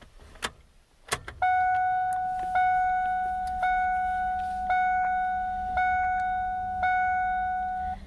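Two clicks from the ignition key turning to on, then the 1993 Ford Econoline's dashboard warning chime dinging six times, about once a second, each ding a clear tone that fades before the next.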